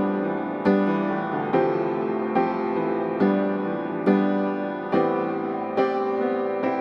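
Slow instrumental background music: sustained keyboard chords struck a little more often than once a second, each ringing and fading before the next.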